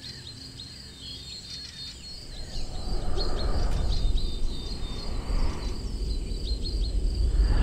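Many short, high-pitched chirps, like birds and insects in a forest. From about two and a half seconds in, a deep rushing whoosh like wind swells in and out and grows louder toward the end.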